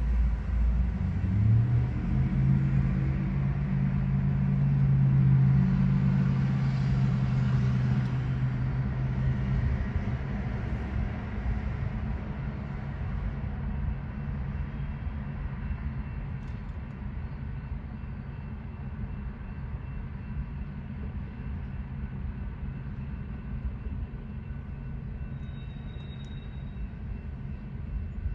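Steady low rumble of a loaded coal train's hopper cars rolling past, mixed with road cars driving by close. A car's engine note is loudest in the first ten seconds, then fades, leaving the train's rumble.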